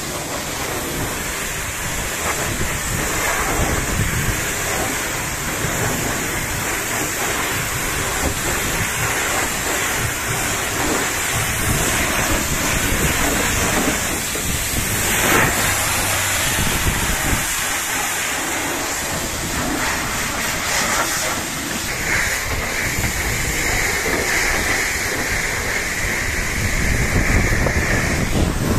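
High-pressure washer jet spraying water onto a truck's steel cargo body, a steady loud hiss and splash of water on metal. About two-thirds of the way through the hiss takes on a higher steady tone until near the end.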